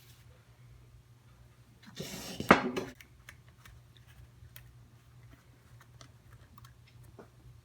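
Metal engine parts handled on a workbench during a teardown of a Suzuki RM125 engine: a brief scrape ending in a sharp clank about two seconds in, with light scattered clicks of handling around it.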